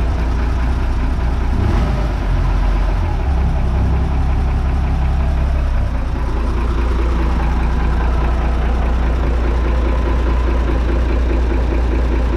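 Motorboat's inboard engine running steadily at idle, warmed up. The reported blowing, compression-leak-like noise is absent: to the owner the engine sounds normal.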